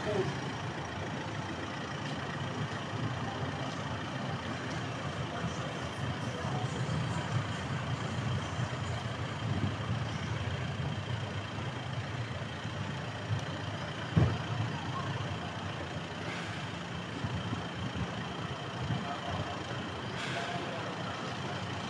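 A vehicle engine idling steadily, a low even hum, with a single thump about fourteen seconds in.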